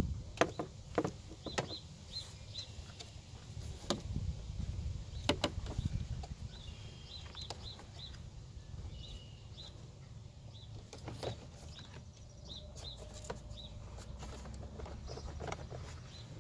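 Scattered clicks and knocks of hands and tools rummaging among plastic and metal parts in a car's engine bay, over a low wind rumble on the microphone. Small birds chirp briefly in short groups in the background.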